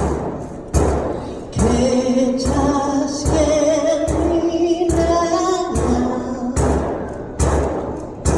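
A song in long, held sung notes over a steady beat of about one knock a second.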